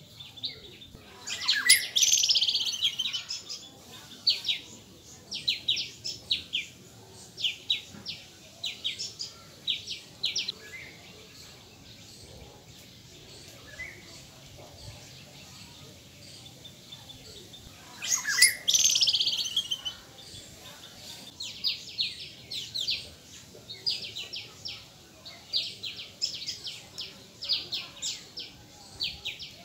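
Small birds chirping in quick runs of short, high notes. Two louder, harsher calls stand out, one about two seconds in and another about eighteen seconds in, with a quieter spell between them.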